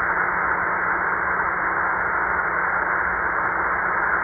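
XHDATA D-808 shortwave receiver in upper sideband at 3413 kHz giving a steady static hiss with a faint low hum under it. No station comes through: the single-sideband signal being sought is not received.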